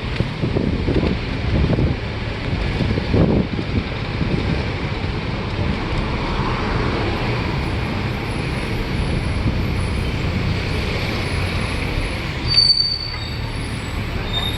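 Tour bus driving through city traffic: a steady rumble of engine and road noise, with a short high-pitched squeal near the end.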